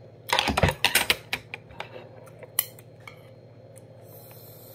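A metal spoon clinking and scraping against a stainless steel rice bowl: a quick flurry of clinks in the first second, then a few single clinks.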